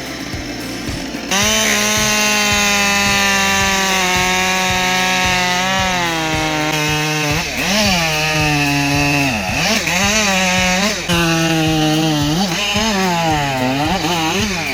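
Chainsaw cutting wood. Its engine jumps louder about a second in, then its pitch repeatedly sags under load and rises again.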